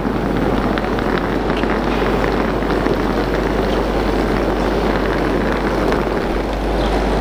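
Steady din of a busy railway platform under a glass-roofed train shed: the low hum of standing electric trains, with passengers' footsteps and rolling suitcase wheels passing.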